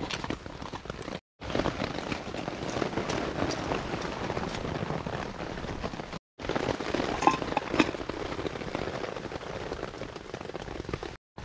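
Steady rain pattering, a dense even crackle of drops, with two sharper clicks a little past halfway as a gas burner and canister are handled. The sound cuts out briefly twice.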